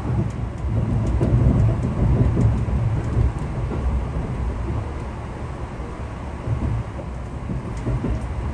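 INAHO limited express train running along the line: a steady low rumble of wheels on rail, a little louder in the first few seconds, with a faint steady tone above it.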